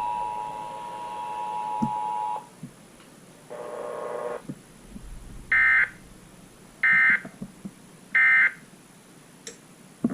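Emergency Alert System two-tone attention signal, a steady dual tone near 1 kHz, cutting off about two seconds in. After a brief burst of noise come three short bursts of EAS digital data tones about 1.3 seconds apart: the end-of-message code that closes the relayed alert.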